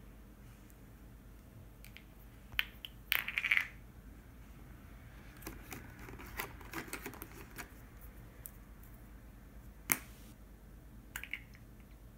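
Small plastic toy pieces clicking and rattling as they are handled and picked out of a plastic tray, in scattered short bursts, with one sharp click about ten seconds in.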